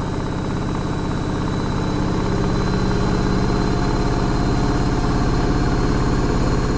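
Washing machine running: a steady motor hum with a fine rapid pulse and a faint high whine, growing a little louder over the first few seconds.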